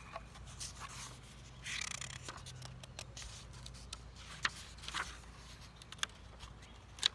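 Faint rustling and crinkling of a picture book's pages being handled and turned, with scattered small clicks; the page is sticking and hard to turn.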